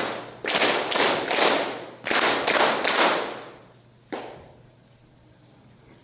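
A hall full of Masonic brethren clapping in unison: the grand honors 'three times three', given here as two sets of three loud, ringing claps about half a second apart. A single lone clap comes about four seconds in.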